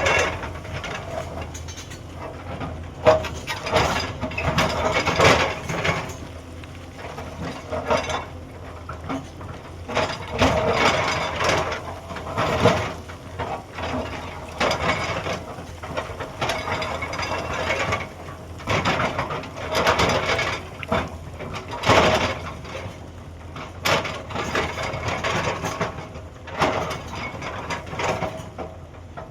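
Hyundai 210 excavator's engine running steadily while its bucket scrapes and clanks against rock and soil, in uneven bursts of grinding and knocking every second or two.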